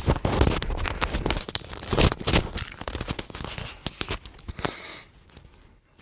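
Handling noise from a cordless stick vacuum: hard plastic knocking, clicking and crackling as it is moved about. The heaviest knocks come at the start and about two seconds in, and the sounds die away after about five seconds.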